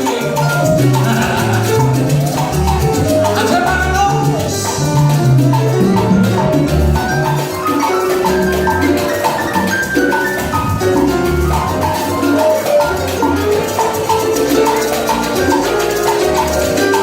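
Salsa band playing live, loud and continuous, with a steady repeating bass line under quick, short melodic notes.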